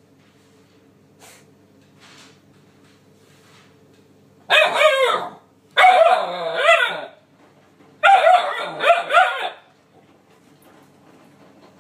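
Nine-week-old Alaskan Malamute puppy barking and howling at cleaning appliances in three bouts of high, wavering calls, each one to one and a half seconds long, about four and a half, six and eight seconds in. Underneath runs a faint steady hum.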